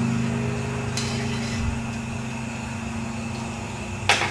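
A steady low mechanical hum from a running motor, easing somewhat partway through, with a sharp click near the end.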